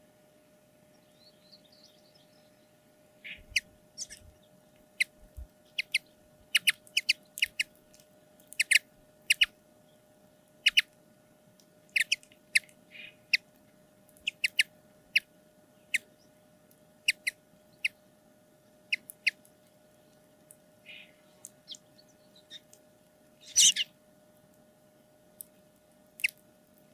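Common linnets husking seeds from a scattered seed mix: irregular sharp clicks, sometimes two or three in quick succession, as seed hulls crack in their bills. One louder, longer burst comes about three-quarters of the way through.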